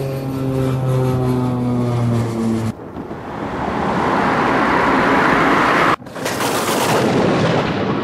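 Vehicle sound effects: a steady pitched engine drone for under three seconds, then a rushing roar like a jet aircraft that swells, breaks off abruptly about six seconds in, and starts again.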